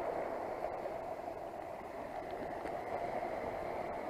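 Steady, even rushing background noise with no distinct events: outdoor ambience by the sea.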